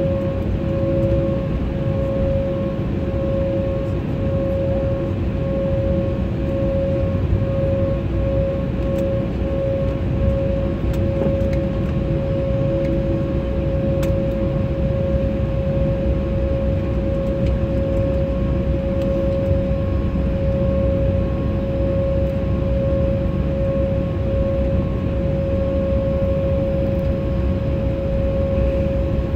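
Airliner's jet engines running at taxi power, heard inside the cabin: a steady whine over a low rumble as the plane rolls onto the runway.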